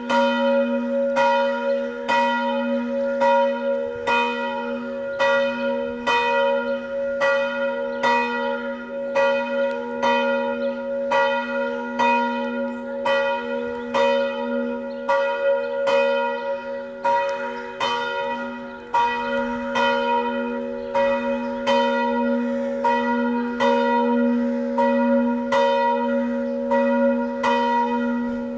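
Church bell ringing for noon, its clapper striking about once a second in an even rhythm, each stroke's hum running on into the next.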